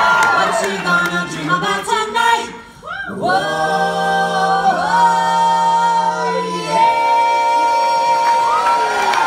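Four voices, three men and a woman, singing in close a cappella harmony: a short phrase, a brief breath about two and a half seconds in, then a long held final chord whose low part drops out near seven seconds while the top note carries on.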